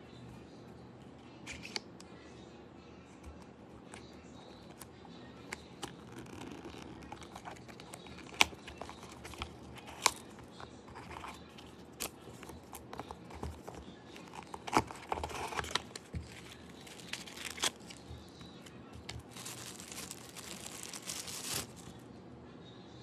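Packaging being handled and opened during an unboxing: scattered sharp clicks and taps among crinkling rustles, with a longer tearing sound about three-quarters of the way through.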